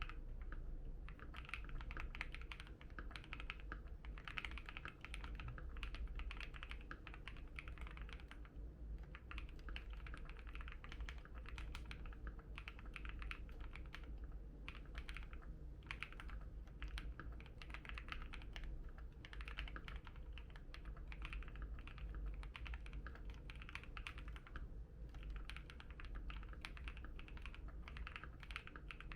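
Continuous fast typing on a Keychron Q1 mechanical keyboard with an FR4 plate and KTT Strawberry linear switches, with a dense run of key clicks and only brief pauses.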